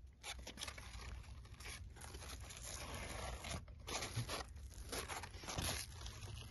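Cucumber leaves and vines rustling and crinkling in uneven bursts as they are handled and pushed aside, over a steady low rumble.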